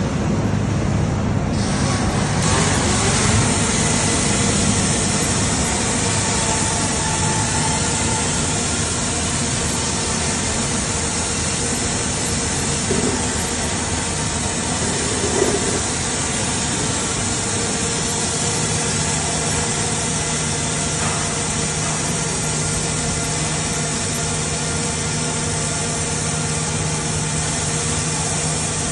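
Two Panasonic robot MIG welders arc welding a steel frame: a steady hiss and crackle from the arcs that fills in about two seconds in. A low steady hum joins about two-thirds of the way through.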